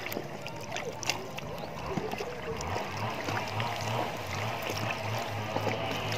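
Small waves lapping and washing over a sandy shore, with light splashing and trickling. A steady low hum joins about three seconds in.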